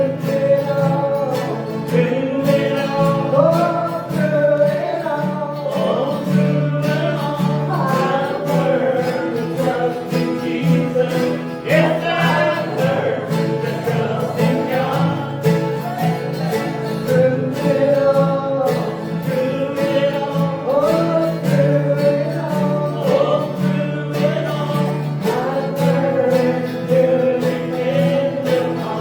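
Live country gospel song: a singer's voice carrying the melody over strummed acoustic guitar.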